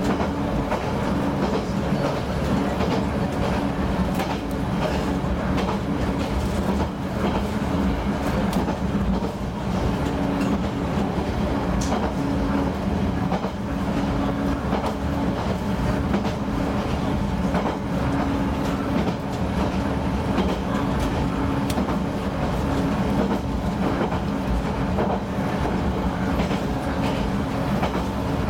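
Diesel railcar's engine idling while the train stands still, a steady low hum.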